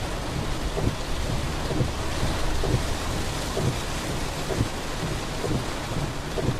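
Heavy rain pouring during a thunderstorm, a steady hiss over a low continuous rumble, with irregular low thuds every half second or so.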